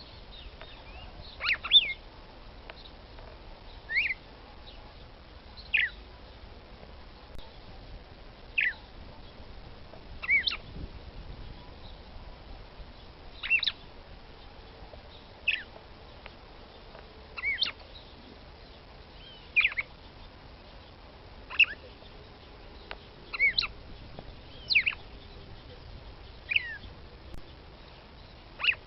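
Female red-cowled cardinal (Paroaria dominicana) calling: short, sharp high call notes repeated about every two seconds, some given in quick pairs. It is the female's call that keepers use to stir a male into singing.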